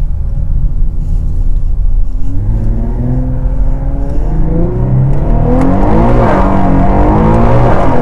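Twin-turbo VR30 V6 of a 1000 hp Infiniti Q50 Red Sport accelerating hard, heard from inside the cabin. The engine note climbs steadily from about two seconds in and is loudest around six seconds, then the pitch bends down and back up near the end.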